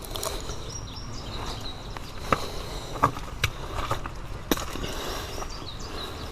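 A person's footsteps walking over uneven outdoor ground, with a few sharp scuffs and knocks at about two, three and four and a half seconds in.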